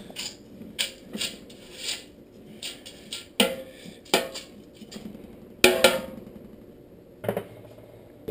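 A plastic spoon stirring and spreading dry grain in a large stainless steel stockpot, with irregular knocks and taps of the spoon against the pot. The loudest knocks ring briefly.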